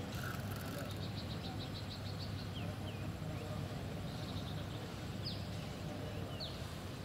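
Outdoor ambience: a steady low rumble under scattered short, high bird chirps, some sweeping up and some down, and a brief rapid high trill in the first couple of seconds.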